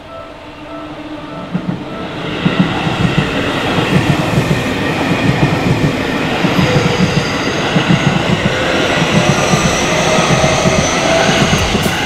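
A Japanese level-crossing warning bell rings its rapid repeated tone while a Seibu Shinjuku Line electric commuter train approaches. Within about two seconds the train's running noise drowns it out: the wheels clatter rhythmically over the rail joints and the crossing as the train passes close by.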